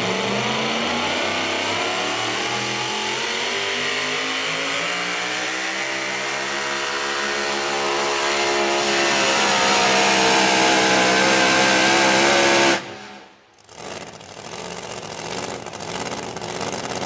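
Super-modified four-wheel-drive pulling truck's engine at full throttle under load while pulling the sled, its pitch rising over the first few seconds and then held high. About three-quarters of the way through, the engine note drops away suddenly, leaving a quieter, lower engine sound.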